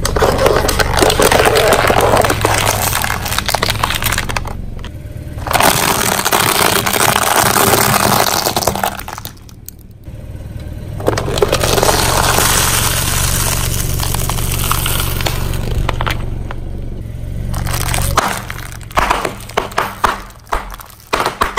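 Car tyre rolling over hollow plastic-cup toys, a long crackling crunch of splitting plastic in three stretches with short pauses, over a low steady hum. Near the end comes a quick run of sharp separate cracks as the tyre presses down on zip bags of small eggs.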